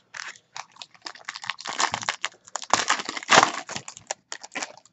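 Foil trading-card pack being handled and torn open: an irregular run of sharp crinkles and crackles of the wrapper, thickest in the middle.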